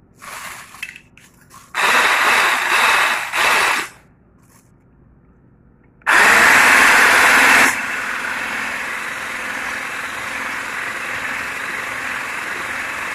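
Electric stick blender with a whisk attachment whipping cream in a bowl. It starts about six seconds in, loud for a second and a half, then settles into a steady run. Earlier, about two seconds in, there are two seconds of loud rough noise.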